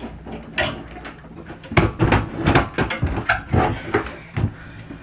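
Hard-shell suitcase, a small one nested inside a large one, being heaved up and shoved onto a high closet shelf: a run of irregular knocks, bumps and scrapes of the plastic shell against the shelf and wall, thickest in the second half.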